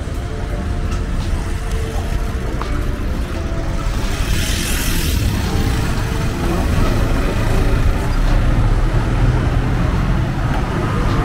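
Street traffic: motor vehicles running and passing close by, with a short hiss about four seconds in and the rumble growing a little louder in the second half.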